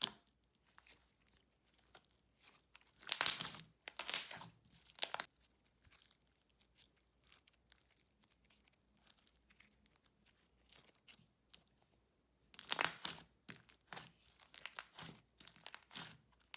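Thick, glossy gummy slime being squished and stretched by hand, giving off irregular runs of sticky clicks and bubble pops. The runs come about three to five seconds in and again from about thirteen seconds on.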